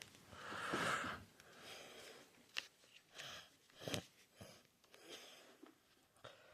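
Faint breathing close to the microphone, several soft breaths in turn, with a few light clicks and knocks of handling between them.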